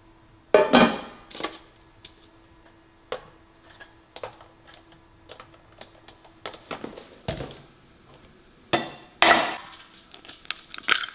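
Sharp knocks and clinks from eggs being handled and cracked against a stainless-steel bowl. The loudest knocks come just after the start and as a pair near the end.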